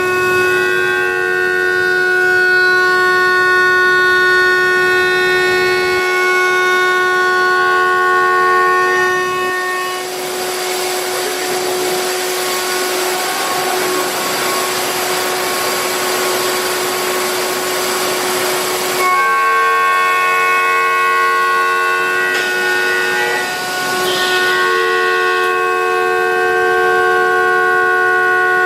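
CNC router spindle milling a guitar neck, its motor whining as a chord of several steady tones. From about ten to nineteen seconds in, a loud hiss covers the whine.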